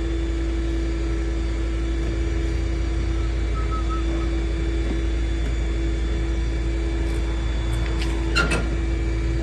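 Rollback tow truck's engine idling: a steady low rumble with a constant hum. A short knock sounds near the end.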